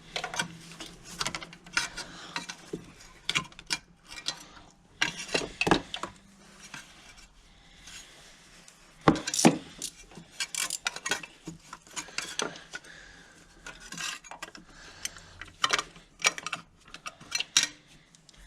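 Socket ratchet clicking in short spells and metal tools clinking while an ignition coil mounting bolt is undone.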